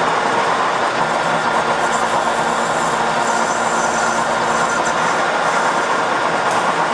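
Metal lathe running steadily, its chuck spinning a workpiece while the cutting tool turns it.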